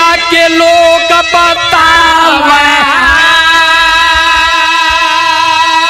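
Birha folk music: harmonium with dholak drum strokes, then a long wavering sung note from about three seconds in.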